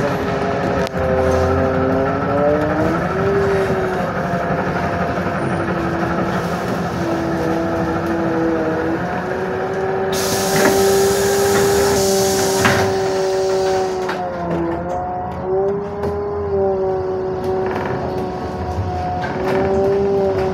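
Ride inside a LiAZ-52803 trolleybus: the electric drive whines in several tones that dip and rise together as it slows and picks up speed in traffic. A burst of hiss joins in about halfway through and lasts about four seconds.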